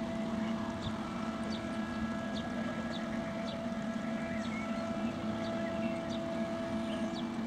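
Steady low drone of a ship's diesel engine passing through the open bridge span, with several held tones in it. Short high chirps about twice a second sound over it.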